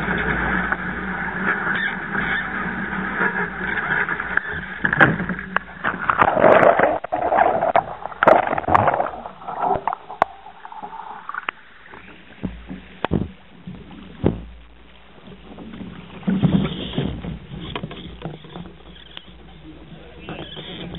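Wind on the microphone and water rushing and splashing against a small sailing dinghy's hull. About five to ten seconds in there is a stretch of heavy splashing as spray washes over the deck and the camera, followed by quieter water slaps and knocks on the hull.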